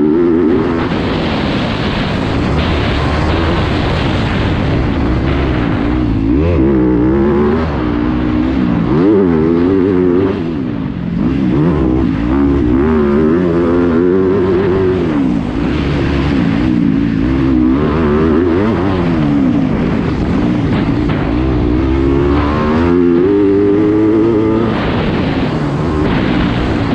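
Yamaha YZ250F's 250 cc four-stroke single-cylinder engine heard from on board the bike under race riding, its pitch climbing and dropping over and over as the throttle opens and shuts and the gears change.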